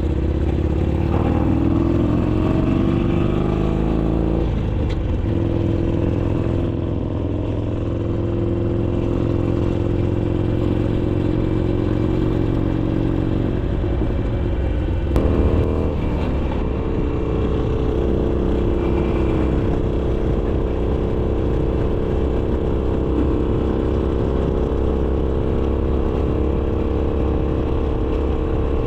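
Harley-Davidson Iron 883's air-cooled V-twin running through a Roland Sands Design two-into-one exhaust while riding. The pitch rises as it accelerates over the first few seconds, then holds at a steady cruise, and breaks briefly and climbs again about halfway through.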